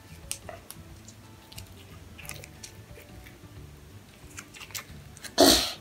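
Stiff jelly slime being pulled and squeezed in a small plastic tub: scattered small sticky clicks and squelches, then one loud, short burst of noise near the end.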